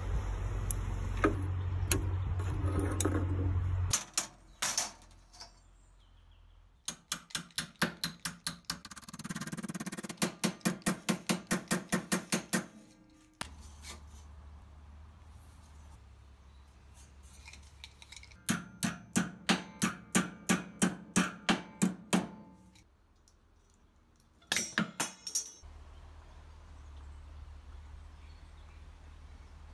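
Hacksaw cutting through flat steel strip held in a bench vise: several runs of quick, even back-and-forth strokes, with quiet pauses between them.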